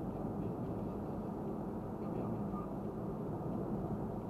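Steady low rumble of a moving car's tyres and engine, heard from inside the cabin through a dashcam's microphone.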